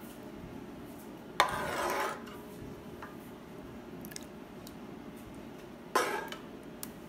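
A metal spoon scraping and clinking against a frying pan and a ceramic plate as curry is dished out: two loud scrapes, one about a second and a half in lasting over half a second, the other about six seconds in, with faint clinks between them.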